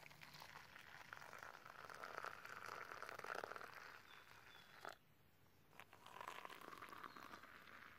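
Hot water poured from a steel pot in a thin stream, faint, first onto coffee grounds in a small pan and then into a mug: two pours with a short break about five seconds in.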